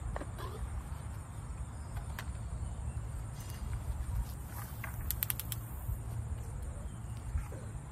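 Steady high-pitched chirring of insects over a low outdoor rumble, with a quick cluster of sharp clicks about five seconds in.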